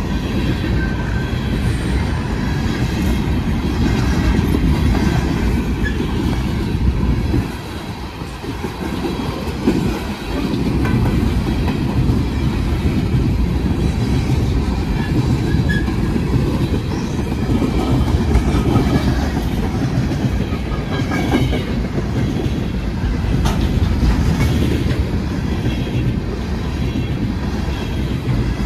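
A long freight train of empty coal cars rolling past at close range: a steady, heavy rumble of wheels on rail with clickety-clack over the rail joints. It eases briefly about eight seconds in.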